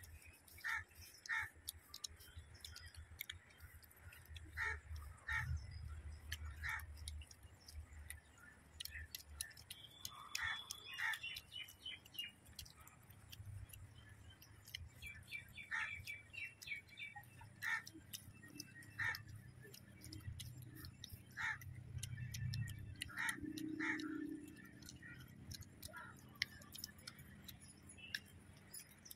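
Birds chirping in short, scattered calls over a faint low rumble.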